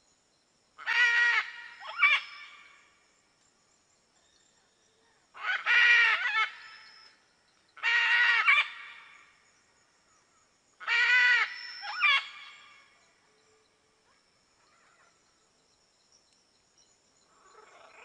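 Blue-and-yellow macaw squawking: four loud calls of about a second each, a few seconds apart, two of them followed by a short second note, and a fainter call near the end.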